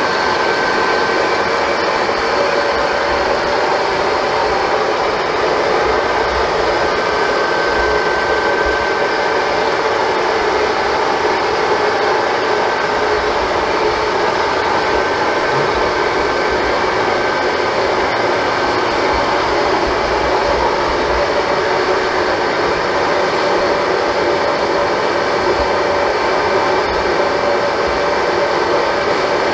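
TOS R5 metal lathe running steadily with a finned kart cylinder spinning in the chuck, a boring bar taking one more cut in the bore. The machine noise is even throughout, a constant hum with a few steady whining tones over it.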